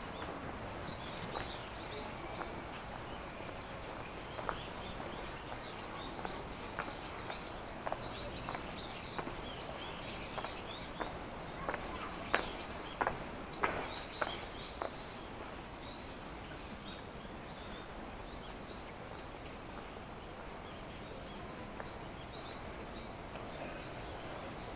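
Footsteps walking along a shrine path, loudest in the middle stretch and dying away in the second half, with small birds chirping again and again over steady background noise.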